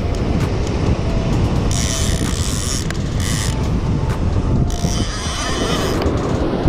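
Large conventional shark reel's clicker ratcheting in two buzzing runs of about a second each as the handle is worked. The clicker keeps getting knocked off by accident. A steady rumble of wind on the microphone and surf runs underneath.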